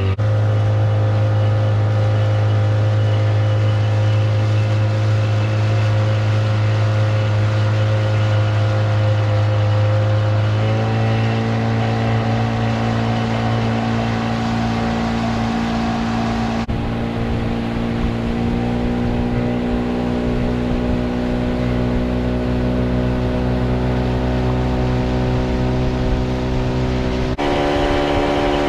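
Outboard motor running steadily under way. Its pitch steps up a few times: about a third of the way in, again past halfway, and near the end.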